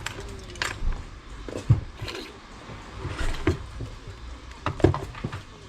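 A handful of irregular sharp knocks and clicks, the loudest about a second and a half in and near the end, over a steady low hum.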